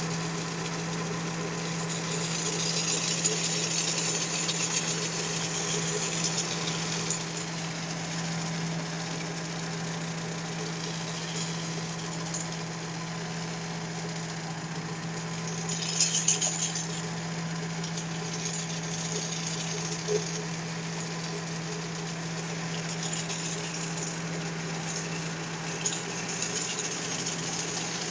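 Skid-steer loader's engine running steadily with a strong low hum, while its hydraulic hedge-trimmer head cuts through a hedge; the hissing cutting noise swells from about three to seven seconds in and again briefly around sixteen seconds.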